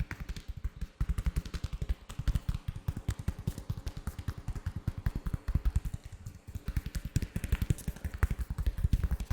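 Latex-gloved hands rubbing and tapping right at the microphone: a fast run of soft, low thumps, about eight to ten a second, that eases off briefly around six seconds in.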